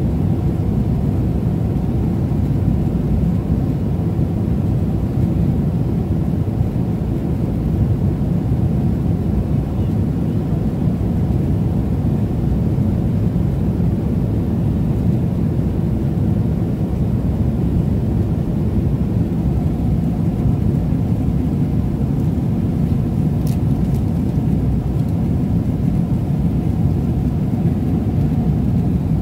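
Steady airliner cabin noise in flight: a constant low rumble of engines and airflow, with a light click about three-quarters of the way through.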